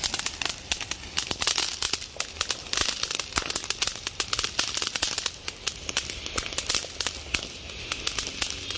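Triangle kothi (tri-colour flower-pot fountain firework) spraying sparks: a hiss full of dense, rapid crackling pops from its crackling effect.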